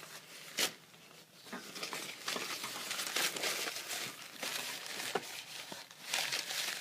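Wiping cloth rubbed by hand across the greasy underside of an aircraft, wiping away grime loosened by the cleaner. It makes an irregular scrubbing rustle that grows busier after about a second and a half.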